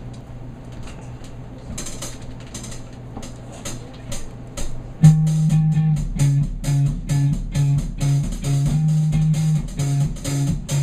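Live rock band with electric guitar, keyboard and drum kit starting a song: a held low note with light cymbal taps, then about five seconds in the full band comes in loud with a pulsing low riff over the drums.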